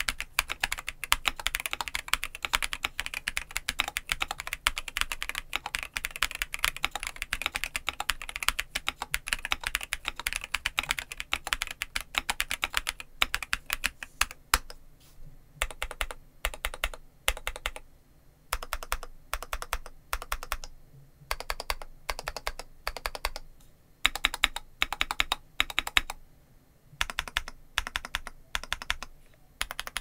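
Typing on a Monsgeek M3W mechanical keyboard with Akko V3 Cream Blue Pro tactile switches and PBT keycaps. There is fast, continuous two-handed typing for about the first half, then slower, separate bursts of a few keystrokes with short pauses between them.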